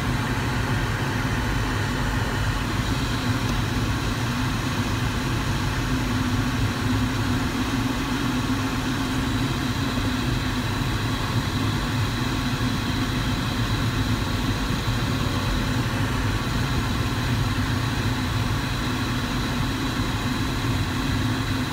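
Steady airflow noise in a Duo Discus glider cockpit under aerotow, with the tow plane's engine drone running underneath.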